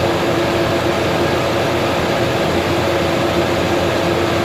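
Steady flight-deck noise of an airliner at cruise: a constant rush of air with a low, even hum running through it.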